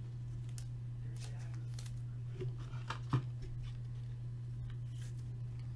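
Trading cards and their packaging being handled: light rustles and small clicks, with a sharper click about three seconds in and another at the end, over a steady low hum.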